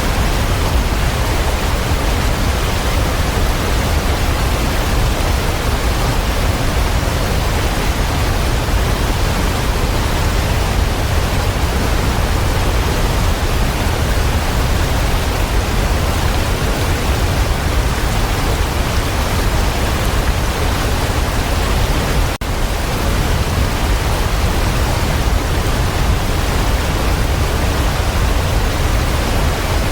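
Waterfall rushing, a steady, dense roar of falling water. About two-thirds of the way through it dips for an instant.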